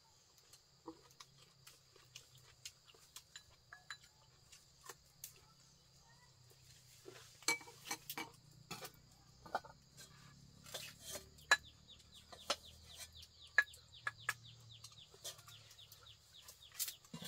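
Chopsticks and a spoon clinking and tapping against small ceramic bowls as someone eats, with sharp clicks coming more often from about seven seconds in. Birds chirp in the background, with a quick run of short falling chirps in the second half.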